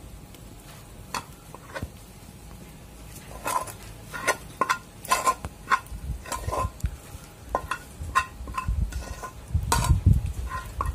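Steel spoon scraping and clinking against an aluminium pan and a brass parat while soft cooked rice-flour dough is scooped out. Sharp metallic knocks, sparse at first and then several a second from about three and a half seconds in, with duller thuds near the end.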